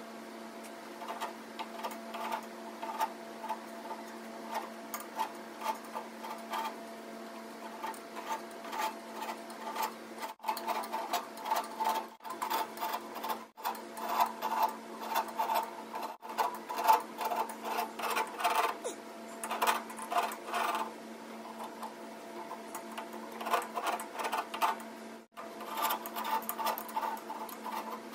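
A hand carving blade scraping and cutting in the spiral channels of a mahogany barley twist: quick, irregular scraping strokes over a steady low hum, broken by a few short silent gaps.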